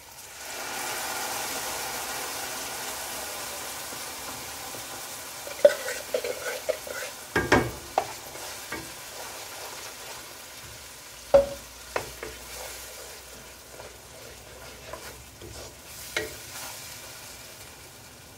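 Ground tomato, ginger and garlic paste hitting hot oil and fried onions in a pan: a loud sizzle that swells at once and slowly dies down. Then a wooden spatula stirs the paste, with scraping and several sharp knocks against the pan.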